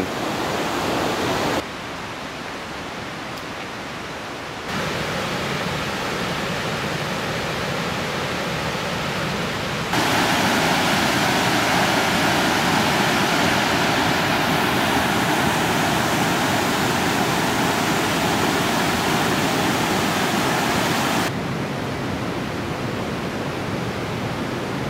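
Whitewater of the North Fork Skokomish River rushing over rocks in rapids and a cascade, a steady loud noise. Its level jumps up or down suddenly several times, and it is loudest from about ten seconds in until about twenty-one seconds.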